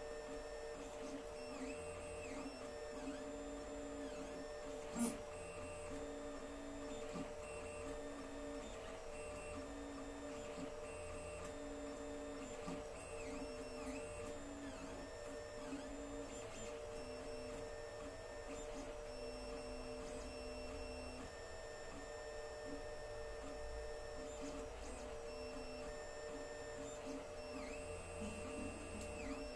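Alfawise U10 3D printer printing: its stepper motors whine in short tones that start, stop and change pitch as the print head and bed move, over a steady hum. One sharp click comes about five seconds in.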